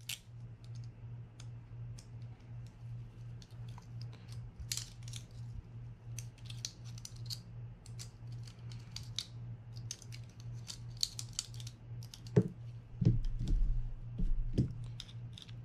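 Small, rapid clicks and scrapes of a utility knife blade picking at a spinning reel's line roller assembly that is seized by corrosion, over a steady low hum. A few louder knocks come near the end.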